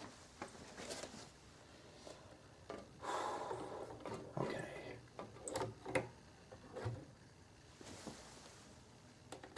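Handling noises as a vinyl record is set onto the platter of a Jensen JTA-230 turntable: a brief soft rustle followed by a few light clicks and knocks.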